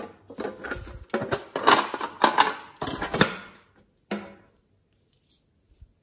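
Hard plastic container and lid handled by hand: a quick run of clacks and rattles, then one more knock about four seconds in.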